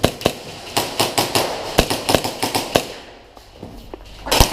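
Airsoft guns firing, a rapid string of sharp shots for about three seconds, a short pause, then another cluster of shots near the end.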